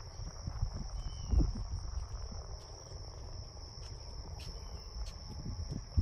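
Crickets chirping in a continuous high-pitched trill, over a low rumble on the microphone.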